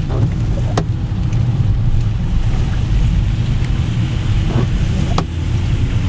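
Car driving on a wet, water-covered road, heard from inside the cabin: a steady low rumble of engine and tyres with a hiss of spray. Two sharp clicks, about a second in and near the end.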